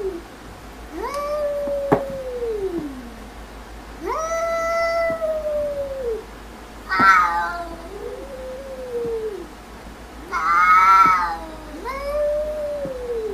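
Domestic cats in a standoff, yowling: about six long, drawn-out yowls, each sliding down in pitch at the end, with two louder, harsher cries about seven and eleven seconds in.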